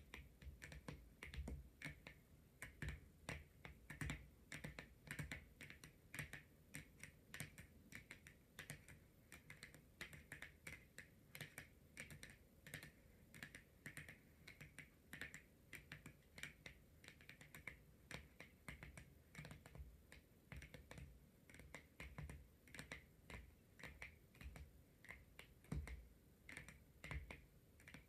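Long natural fingernails tapping and clicking on a tarot card: soft, quick, irregular taps, a few a second, with no pause.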